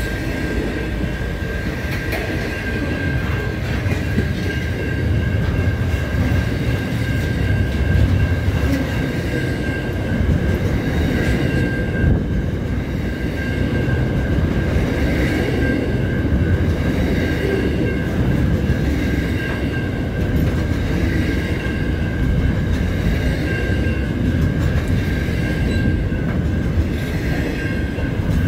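Double-stacked container freight wagons rolling past at speed: a steady, loud rumble of steel wheels on rail, with a constant high-pitched ringing tone over it.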